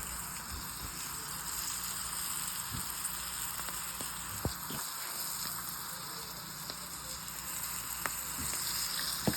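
Flour-dredged green beans frying in hot oil in a pan: a steady sizzle with a few small pops.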